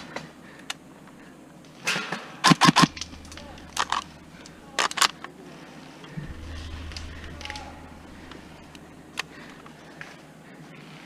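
Airsoft gun firing sharp single shots in short groups: a cluster of about four between two and three seconds in, pairs near four and five seconds, and one more shot later.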